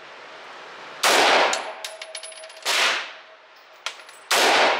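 Three rifle shots from an AR-style rifle in 300 Blackout, fired slowly about a second and a half apart, each echoing briefly in the indoor range, with light metallic clinks between the shots.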